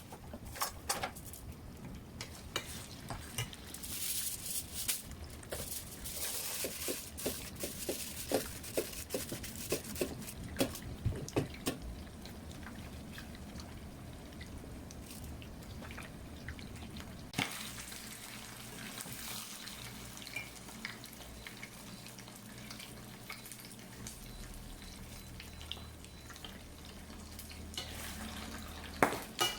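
Water running and dripping, with scattered clinks and knocks like dishes or utensils being handled at a sink; the knocks are densest in the first half.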